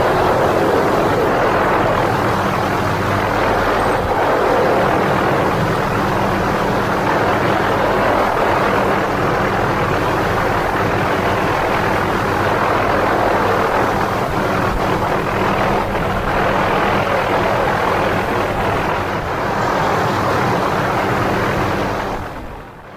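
MD 500D helicopter in flight, its engine and rotor running steadily under a rush of air noise, as picked up by a camera mounted on the helicopter's skids. It fades out near the end.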